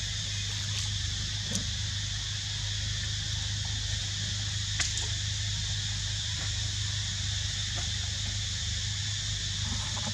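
Steady outdoor background noise: a constant high hiss-like drone and a low hum, with a couple of faint short clicks.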